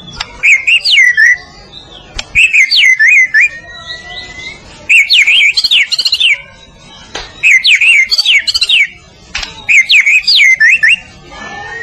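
White-rumped shama singing: five loud phrases of rapid, sweeping whistled notes with short pauses between them.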